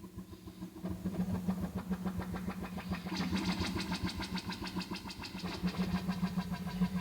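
Hardware synthesizer holding a low, engine-like droning buzz. About three seconds in, a brighter, fast-pulsing buzz joins on top.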